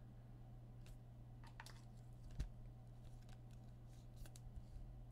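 Faint handling of trading cards and their plastic holders: a scattering of light clicks and rustles, with one soft thump about two and a half seconds in, over a steady low hum.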